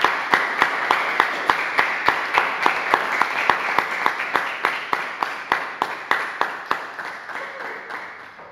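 Small audience applauding, with one nearby pair of hands clapping steadily about three times a second over the crowd's clapping. The applause dies away over the last couple of seconds.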